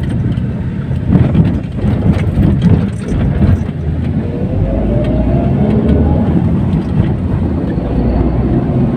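Car engine and road noise heard from inside the cabin, with a run of knocks and bumps in the first few seconds as the car rolls over railway level-crossing tracks, then the engine note rising as it picks up speed.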